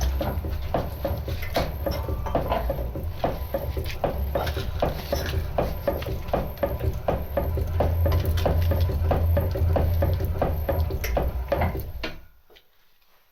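Homebuilt 100 lb trip-style power hammer running: rapid, even blows about three a second over the steady hum of its drive motor, stopping about twelve seconds in.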